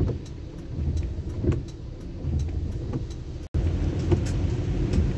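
Car engine and tyre noise on a wet road, heard from inside the cabin, with scattered light ticks. The sound breaks off abruptly about three and a half seconds in, where the recording is cut, and resumes slightly louder.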